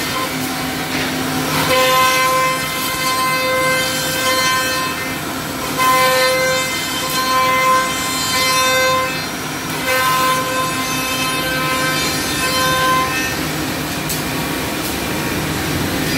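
Four-spindle CNC mortising machine cutting mortises in curved wooden chair slats: the drilling spindles run with a steady high-pitched whine that swells and fades every second or two as the bits plunge and oscillate through the wood, over a noisy cutting rasp.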